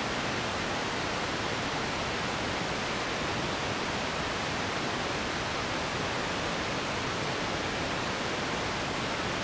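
Steady, even hiss of broad noise, with no bird calls or other distinct sounds in it.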